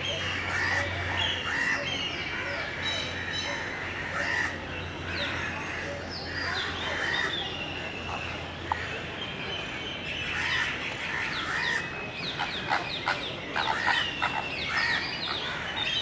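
A flock of birds calling over one another: many short chirps and calls overlap, busiest a few seconds before the end.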